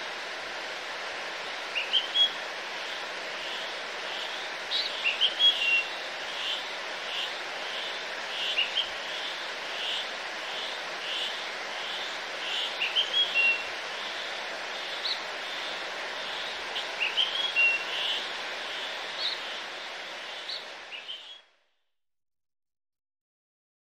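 Birds chirping over a steady rushing background noise, with one bird repeating a short note about three times every two seconds in the middle; the sound cuts off abruptly near the end.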